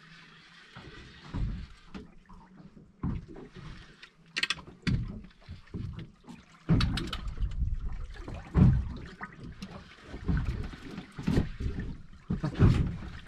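Sea water lapping and sloshing against the side of a boat in uneven surges, stronger in the second half, with a few sharp clicks and knocks.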